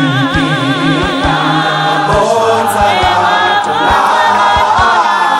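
A gospel choir singing in harmony, holding long notes with a wide vibrato before moving on to new chords over low bass voices, with a steady low beat of about two to three strokes a second underneath.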